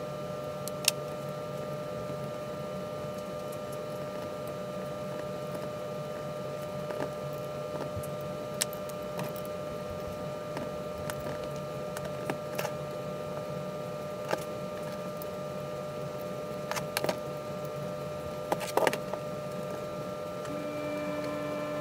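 Scattered light clicks and clinks of small metal parts (nuts, washers, cable lugs and solenoid terminals) being handled on a workbench while winch solenoids are reassembled, over a steady hum. A quick cluster of louder clicks comes near the end.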